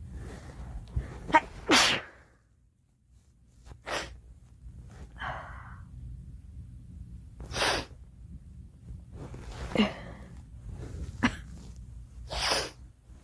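A girl sneezing over and over: about six sneezes a couple of seconds apart, the first the loudest.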